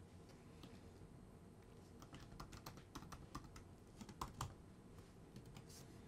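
Faint typing on a computer keyboard: scattered single keystrokes, most of them in the middle stretch.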